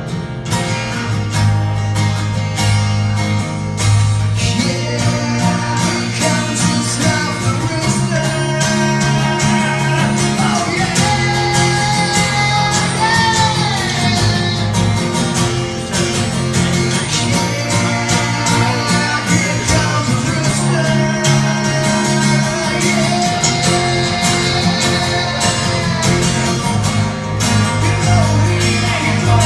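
Live performance of a guitar-led rock song, the guitars sustaining melodic lines over a steady bass.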